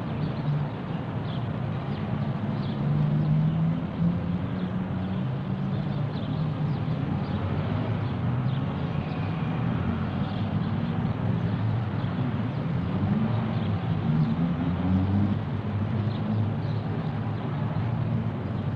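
Steady low rumble of distant motor traffic, with engine tones that slowly rise and fall in pitch.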